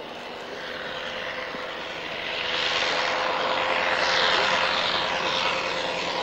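Propeller-driven engine of a First World War-era biplane flying past low. The engine note gets louder over the first couple of seconds as the aircraft approaches, then holds steady, with a whooshing, sweeping tone as it passes.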